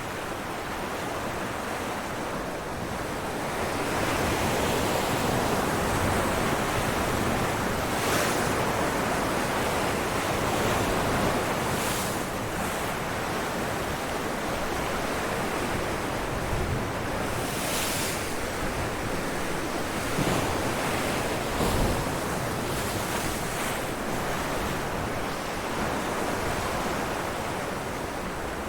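Sea waves breaking on rocks: a continuous wash of surf that swells a few seconds in, with several sharp splashes as individual waves hit.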